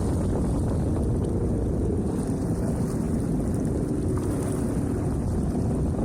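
Jet ski engine running steadily at low speed, a constant low rumble, mixed with wind buffeting the microphone.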